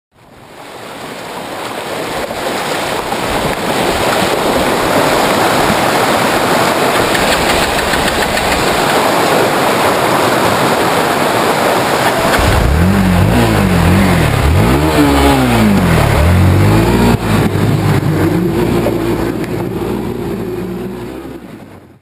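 Loud rushing, splashing water noise for about the first half. Then a Hero Xpulse 200's single-cylinder engine revs up and down several times in quick succession and settles to a steadier note.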